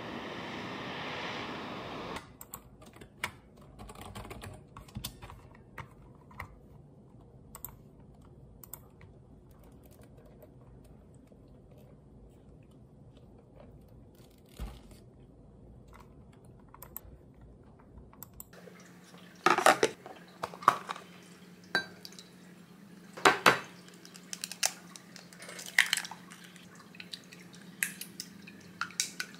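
A steady hiss for about the first two seconds, then faint, sparse clicks of typing on a computer keyboard. From about two-thirds of the way through come louder clinks and taps as eggs are beaten with a silicone spatula in a glass measuring cup.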